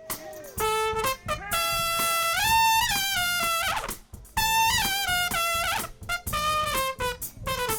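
Trumpet playing a short solo feature in two phrases with a brief break about four seconds in, mixing held notes with quicker runs.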